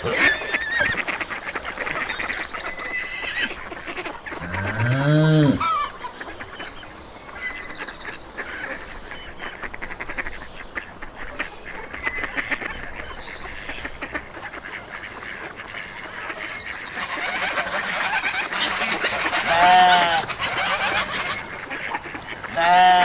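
Farmyard fowl calling: a continuous chatter of honking and quacking. A louder drawn-out call comes about five seconds in, and two shorter ones near the end.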